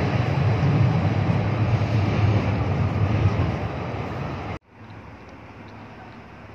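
Loud, steady vehicle rumble mixed with wind on the microphone, easing a little, then cut off abruptly about four and a half seconds in. After that comes much quieter outdoor background with a faint low engine hum.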